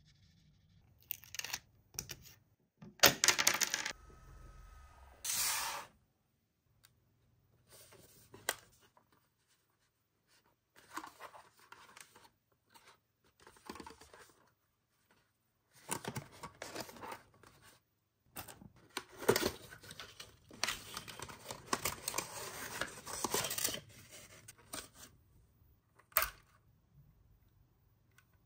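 Toy packaging being opened and handled: cardboard and plastic tearing and rustling in irregular short bursts, with a few sharp clicks and silent gaps in between.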